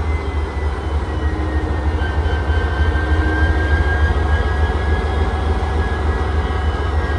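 The 16-cylinder EMD 710G3B turbocharged diesel engine of a WDP-4 (GT46PAC) locomotive running steadily. A deep, even rumble sits under a high, jet-like turbocharger whine that dips slightly in pitch in the first couple of seconds and then holds.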